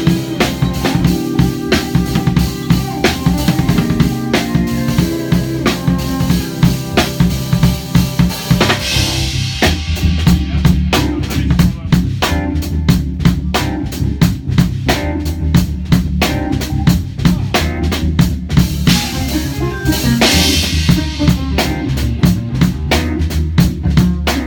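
A drum kit, bass and cello playing a hip-hop groove together, with steady kick, snare and rimshot hits. About ten seconds in, the bass drops lower and fuller under the drums.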